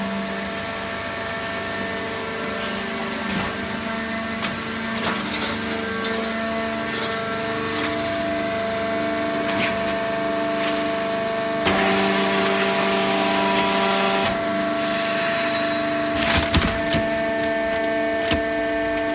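Hydraulic cardboard baler running: a steady motor and pump hum with crackling and creaking as cardboard is crushed. About twelve seconds in there is a louder hiss that lasts a couple of seconds.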